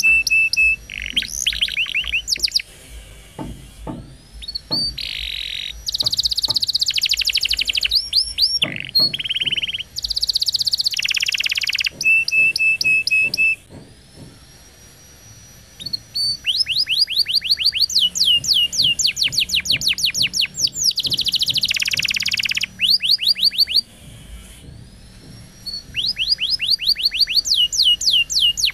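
Canary singing a long, continuous song of rapid trills and rolls of fast repeated notes, broken by buzzy phrases and a held whistled note, with two brief lulls.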